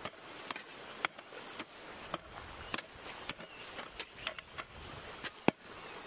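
A run of sharp clicks and taps, irregular at about two to three a second, with one louder knock about five and a half seconds in, over a faint steady high hiss.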